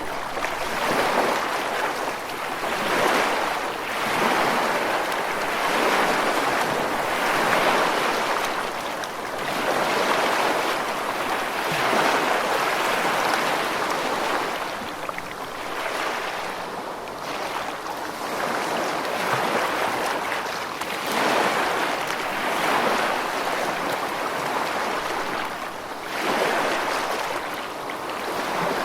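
Ocean surf: a continuous rush of waves that swells and eases every few seconds.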